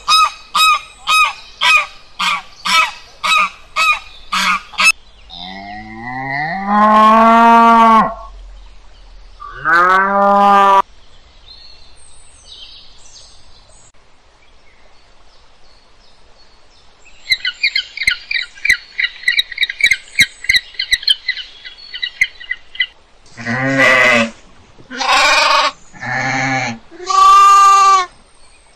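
A string of animal calls: domestic geese honking in quick succession, then two long drawn-out calls, a fast run of high chirps, and near the end four loud bleats from goats.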